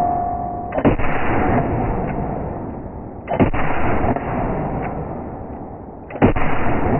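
Three revolver shots from a Chiappa Rhino 60DS fitted with a steel muzzle brake/match weight, fired about two and a half to three seconds apart. Each shot is sudden and followed by a long echoing decay.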